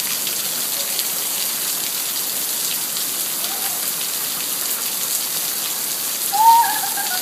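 Heavy rain falling steadily, a dense hiss of drops hitting surfaces. About six seconds in, a brief high-pitched sound rises and falls over the rain, the loudest moment.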